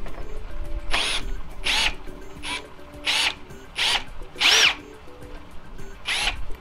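Ryobi R18PDBL-0 18V ONE+ brushless drill worked in seven short trigger pulls, its motor whining up and falling away each time; the longest and loudest pull comes about four and a half seconds in.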